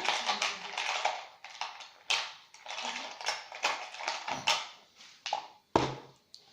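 Small plastic glitter pots clicking and clattering as they are handled and picked through: a series of irregular taps, with a heavier knock near the end.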